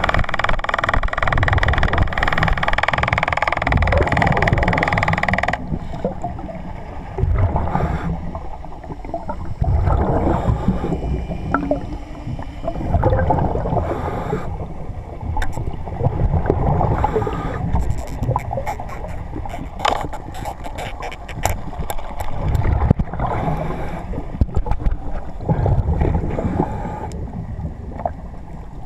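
Muffled underwater sound on a diver's camera: irregular low rushing and sloshing of water against the housing, with scattered sharp clicks through the middle stretch. A steady higher tone with hiss runs for the first few seconds and cuts off abruptly about five and a half seconds in.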